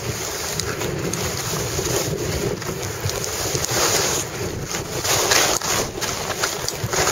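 Wind rushing over the microphone during a fast downhill run on snow, with the hiss and scrape of edges carving the snow. The rush swells unevenly, loudest a little past the middle.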